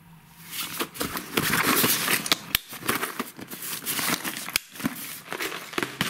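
A fabric fishing tackle bag being handled: irregular rustling and scraping of its fabric and zipper, with sharp clicks and knocks from plastic lure boxes.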